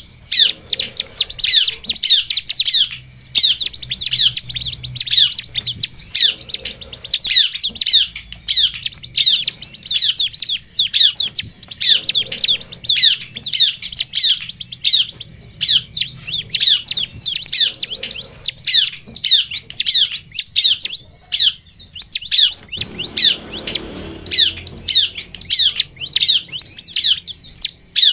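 Bar-winged prinia (ciblek) calling in a fast, unbroken chatter: sharp, high, downward-slurred chirps repeated several times a second, in long runs with only brief pauses.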